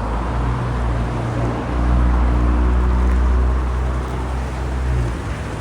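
A vehicle engine running steadily with a low hum that grows louder about two seconds in and eases off near the end.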